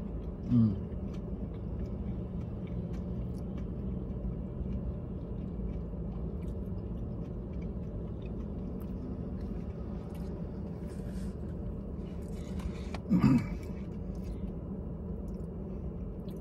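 A person chewing mac and cheese, with faint small clicks of a plastic fork on the food container, over a steady low hum in a car's cabin. Twice, about half a second in and near the end, a short hum of the voice.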